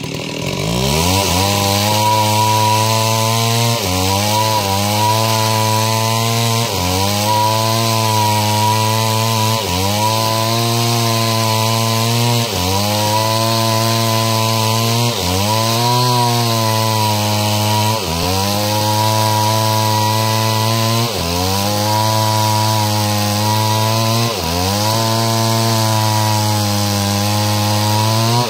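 Stihl two-stroke chainsaw revving up and running at full throttle as it rips lengthwise through a log to make planks. The engine note sags briefly and recovers about every three seconds as the chain bites into the wood. The throttle is let off at the very end.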